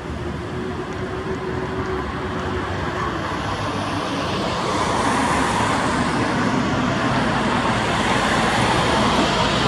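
Road vehicle noise, a steady rush that grows gradually louder over several seconds.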